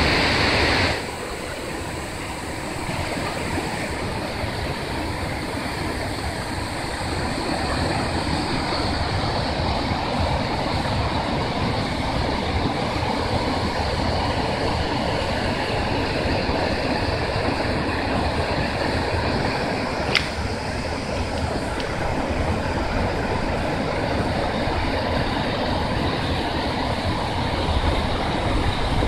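River rapids rushing steadily over a shallow rocky bed, a continuous even roar of water with deep rumble in it; louder for the first second, with a single sharp click about twenty seconds in.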